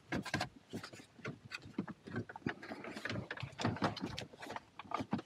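Hard plastic dash trim panel of a 1997–2002 Camaro being worked around the steering wheel by hand: a string of irregular clicks, taps and scrapes of plastic rubbing on plastic.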